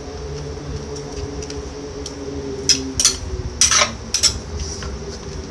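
Wooden pestle working papaya salad in a clay mortar: several sharp knocks and clatters in a quick run past the middle, over a steady low hum.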